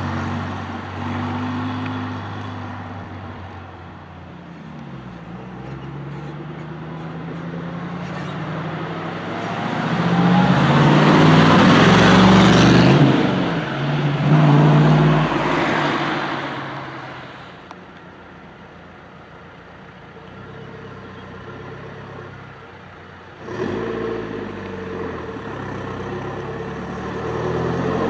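Cars passing one by one on a winding road. First a red Ferrari California's V8 drops in pitch as it pulls away. About halfway through, a black classic sports car approaches and passes loudly with its engine revving, the loudest moment. Then, after a sudden cut, an Alfa Romeo Giulia saloon's engine comes up near the end.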